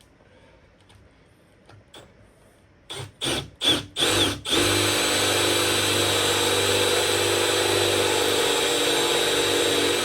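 Power drill boring a 3/8-inch dowel hole in wood through a doweling jig. A few short blips of the trigger about three seconds in, then the drill runs steadily at full speed from about halfway through.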